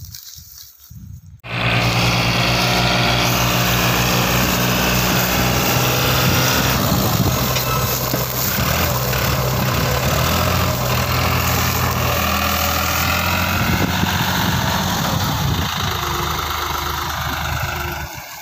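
New Holland 3600-2 tractor's diesel engine working hard under load, pulling a trailer heaped with soil through soft, muddy ground. It comes in loud about a second and a half in and keeps running steadily, its pitch shifting now and then.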